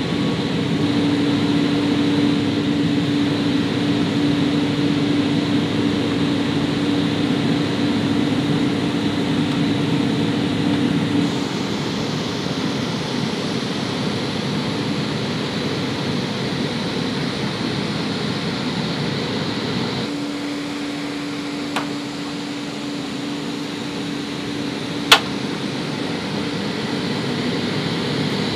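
Steady machinery drone of flight-line equipment, a rushing noise with a low hum that drops out for several seconds partway through. A single sharp click sounds near the end.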